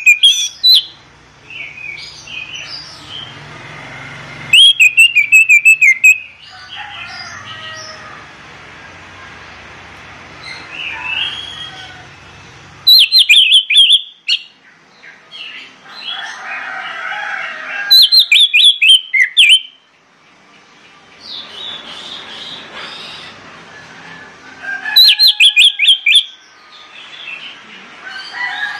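Orange-headed thrush singing. Loud bursts of fast repeated high whistled notes, each lasting about a second and a half, come every several seconds, with softer, more varied notes between them.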